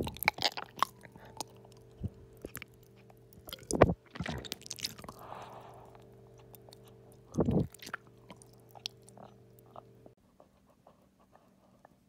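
Wet mouth noises heard from very close: saliva and tongue clicks with three heavier gulping thuds about four seconds apart, while gummy candies are held in the mouth. A faint steady hum sits underneath and stops about ten seconds in.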